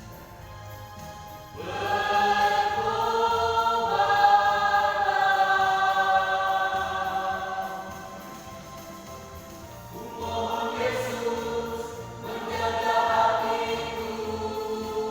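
Singing with long held notes over backing music with a steady low beat. The first phrase comes in about one and a half seconds in and the second about ten seconds in.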